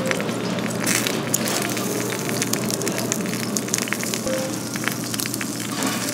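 Thick pork belly sizzling and crackling on a hot charcoal grill plate, its rendering fat spitting in many small rapid pops, with snips of kitchen scissors cutting through the meat.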